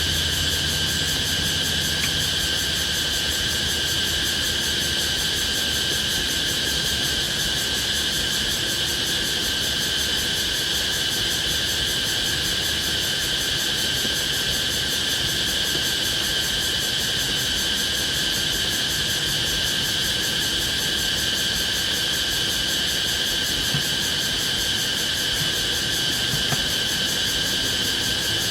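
Dense, steady chorus of night insects such as crickets, a continuous high buzzing with no break. A low hum runs underneath and fades out about halfway through.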